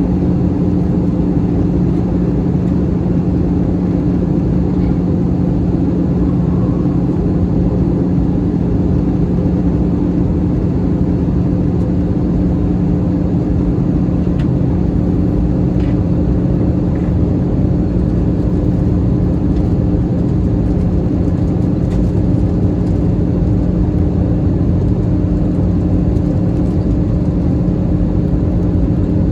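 Steady cabin noise of an Airbus A321-211 in flight: a constant rush of airflow with the even drone of its CFM56 jet engines and a steady low hum underneath.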